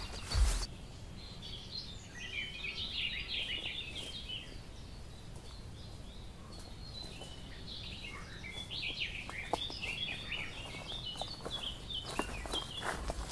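Woodland birdsong: a songbird singing quick chirping phrases in two spells. Rustling footsteps through grass and undergrowth are loudest in the first half-second and return near the end.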